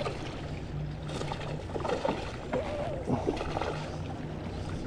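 Water splashing and gurgling around a fishing kayak while a small, lightly hooked bass is played, with a few scattered knocks.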